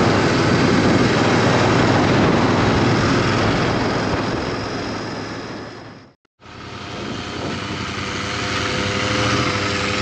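Motorcycle riding noise, the Bajaj Pulsar NS200's engine under a rush of wind on the microphone, fading out about six seconds in to a moment of silence. The engine then comes back running steadily with an even hum.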